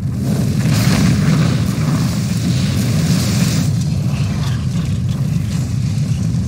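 Volcanic eruption sound effects from a DVD menu: a deep, continuous rumble, with a rushing, hissing surge from about one second in to nearly four seconds in.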